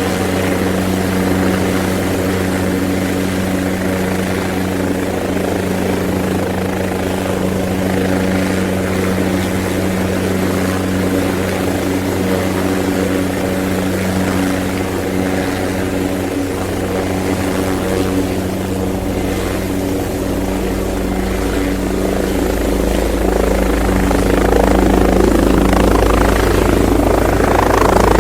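Agusta CW-86 helicopter running steadily, a machine hum with several held tones over rotor noise. A deep low rumble comes in about two-thirds of the way through, and the sound grows louder near the end.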